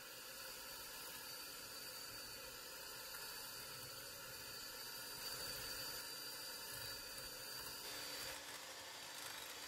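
Electric hand mixer running steadily, its beaters whisking eggs into creamed butter and sugar in a glass bowl.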